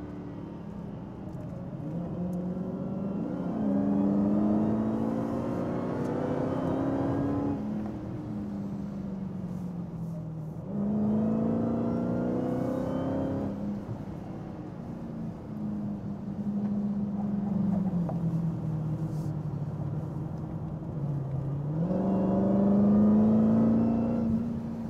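Dodge Charger SRT Hellcat's supercharged 6.2-litre Hemi V8 accelerating hard in several long pulls, its pitch climbing through each and then dropping back.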